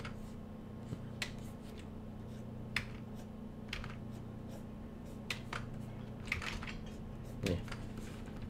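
Sparse, faint clicks and taps at a desk, a few seconds apart and irregular, over a steady low electrical hum.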